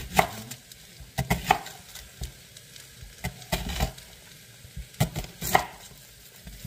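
Chef's knife knocking irregularly on a wooden cutting board while a red onion is trimmed and its dry skin peeled off, about half a dozen sharp knocks, the loudest just after the start and about five and a half seconds in.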